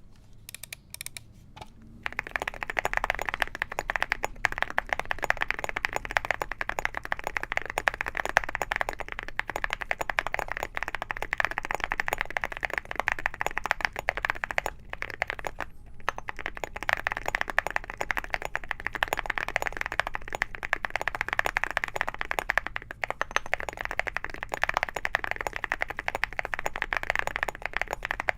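Mechanical keyboard fitted with full metal keycaps being typed on quickly and continuously: a dense stream of clicky keystrokes. A few separate key presses come first, and the fast typing starts about two seconds in, with brief pauses.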